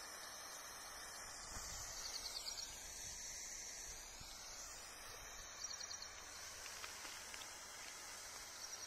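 Holi colour smoke bomb burning with a faint steady hiss as it releases its yellow smoke slowly instead of bursting, with a few short faint chirps in the background.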